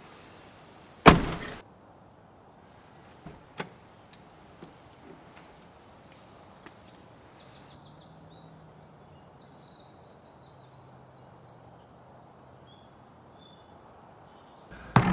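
A car door slams shut about a second in, followed a couple of seconds later by a fainter click. Small birds then chirp in quick high trills, and a loud noise starts just before the end.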